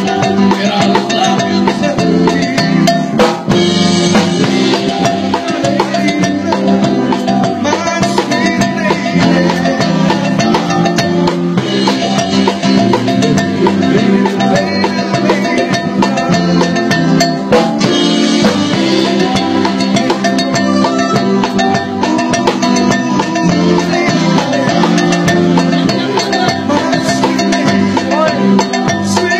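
Live band music, with a drum kit playing throughout alongside sustained pitched instruments, heard from just behind the drummer.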